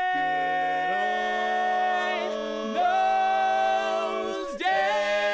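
Barbershop quartet singing a cappella in close four-part harmony, holding long sustained chords that change about a second in, near three seconds, and again near the end.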